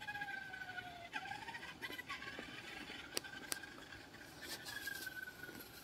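Radio-controlled car's motor whining faintly as it drives down the road, its pitch rising and falling slowly with the throttle. Two sharp ticks about three seconds in.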